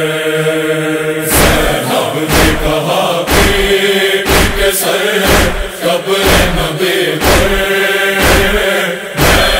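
Noha recitation: a voice chanting a lament in long held notes, over a steady beat of heavy thuds about once a second, the chest-beating (matam) that keeps time in a noha.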